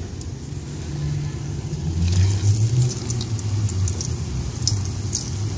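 Flour-coated raw potato sticks frying in hot oil in a wok: a steady sizzle with a few sharp crackles. Underneath runs a low rumble that grows louder about two seconds in.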